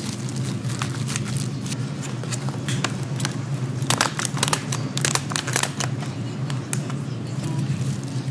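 Food-stall cooking clatter: scattered clicks and taps of utensils on cookware, with a cluster of sharper ones about four to six seconds in, over a steady low hum.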